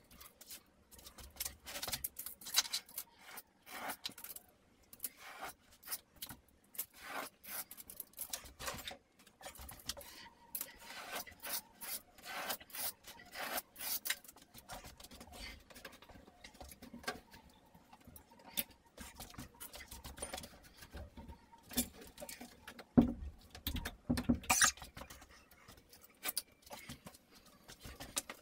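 Hand tool scraping and rasping against plasterboard in quick, irregular strokes, a few of them louder near the end.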